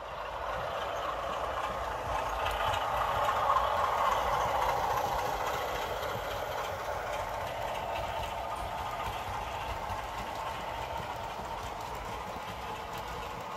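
Model train running past on the track: the wheels rolling and rattling over the rails with the motor running, building to its loudest about four seconds in and then slowly fading as it moves away.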